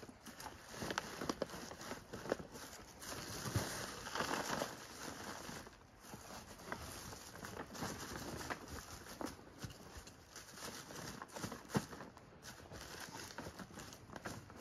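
Dry leaves and leaf mold rustling and crackling under hands as they are scooped and piled over a buried collection box in a plastic tote, with irregular small crackles and rustles throughout.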